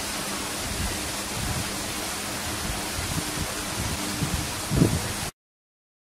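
A steady, even hiss with a few soft low knocks, the loudest near the end. The sound cuts off abruptly about five seconds in.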